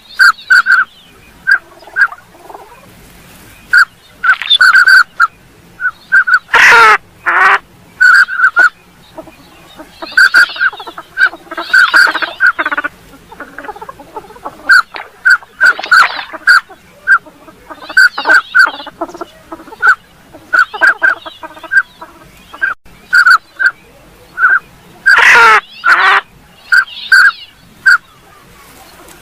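Northern pintail ducks calling: runs of short, high whistled notes, with raspier calls between them. Two louder, harsher calls that drop in pitch stand out, one about a quarter of the way in and another near the end.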